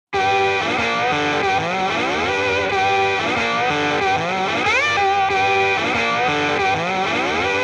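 Background music led by a distorted electric guitar, starting suddenly, with a rising slide about five seconds in.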